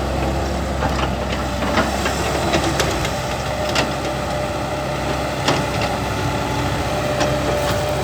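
Caterpillar E120B excavator's diesel engine running steadily under working load, with scattered sharp clanks and knocks from the bucket working soil. The owner suspects a worn engine or a faulty injection pump, as it bogs slightly under load.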